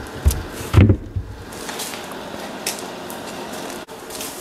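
A wooden tray knocks once as it is set down into place in a trunk, a dull thump about a second in. Then comes a steady hum of workshop background noise.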